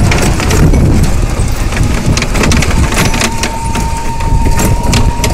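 Small open two-seat work cart on the move: a low rumble of wind and driving noise on the microphone, with rattling clicks from the cart. A thin steady whine comes in about three seconds in and holds.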